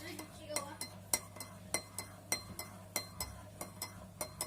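A spoon stirring in a cup of hot milk with butter, honey and baking soda, clinking against the cup's sides about three times a second.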